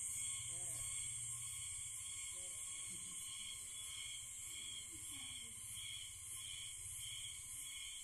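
Steady, shrill chorus of forest insects, several overlapping drones at different pitches, with a faint regular pulsing in the highest one.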